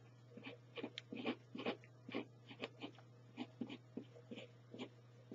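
Uni-ball pen writing on paper: a string of short, faint scratches, a few a second, as figures and letters are written, over a steady low hum.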